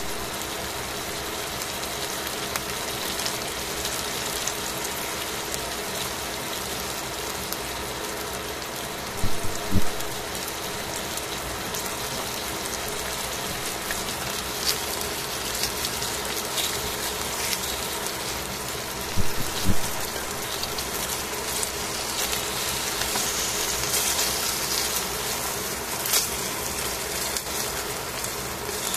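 Chicken pieces frying in a stainless steel pan, sizzling steadily, with a few sharp pops or knocks: two pairs about a third and two thirds of the way through, and one more near the end.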